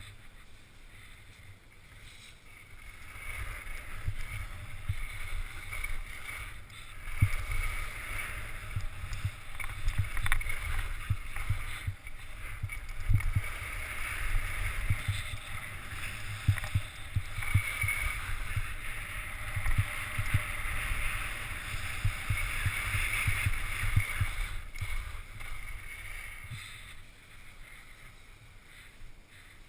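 Skis scraping and hissing over packed snow on a downhill run, with wind buffeting the camera microphone. Louder through the middle and easing off near the end.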